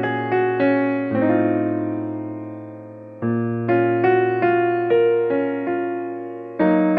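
Background music: a soft piano tune of struck notes and chords over held bass notes, with one long chord left to fade for about two seconds before the melody resumes.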